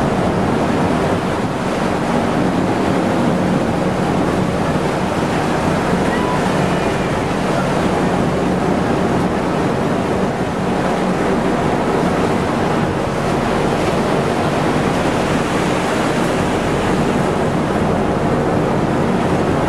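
Steady rushing noise of wind and waves by the sea, with a low steady hum underneath.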